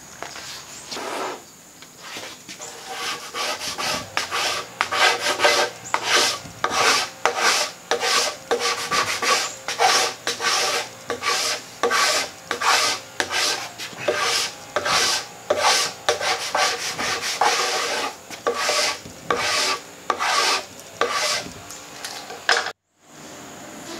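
A hand scraper is pushed in repeated strokes across an oak tabletop, about two a second, scraping off old finish softened by chemical stripper. The finish is a tough one that has not fully let go after three coats of stripper. The scraping cuts off suddenly near the end.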